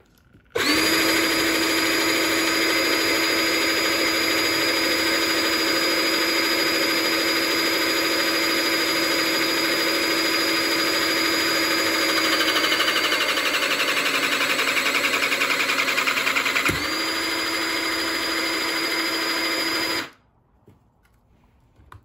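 Battery-powered electric hydraulic pump motor starting and running with a steady whine, driving a hydraulic crimping head. About twelve seconds in, its note turns rougher and pulsing as the pump comes under load. Near seventeen seconds it cuts out for a moment, restarts on its steady note, and stops suddenly about twenty seconds in.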